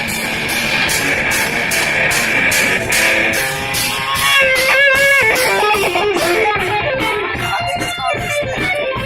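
Heavy metal music in an instrumental passage: distorted electric guitar over bass and drums, with a steady cymbal beat and bent guitar notes about halfway through.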